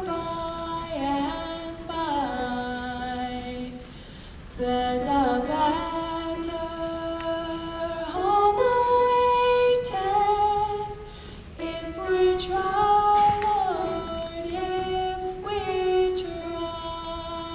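A young female soloist singing unaccompanied into a microphone, holding long notes and sliding between pitches.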